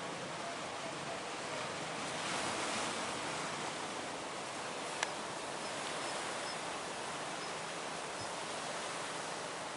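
Large ocean waves breaking as a steady wash of surf, swelling slightly about two seconds in, with one sharp click near the middle.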